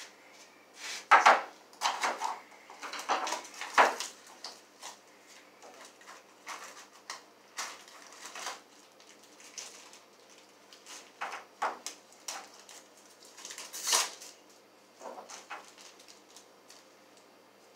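Tools and small hardware being picked up, rummaged through and set down on a wooden table: irregular knocks, clatters and rustles, busiest in the first few seconds with another loud clatter about fourteen seconds in.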